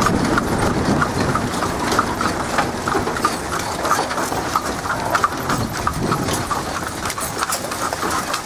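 A buggy horse's hooves clip-clopping steadily on a paved road.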